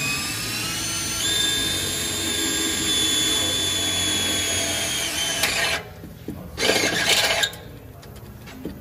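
Snap-on cordless drill with a right-angle head drilling a 7/8-inch hole into a metal exhaust pipe. Its motor whines and steps up in pitch about a second in. It stops near six seconds in, then runs again briefly about a second later.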